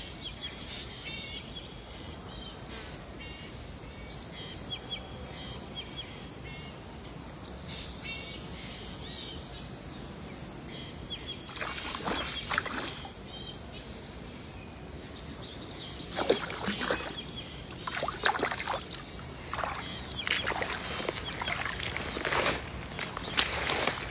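Insects chirring steadily, and from about halfway through a hooked fish splashing at the water's surface in a run of separate splashes as it is fought and reeled in.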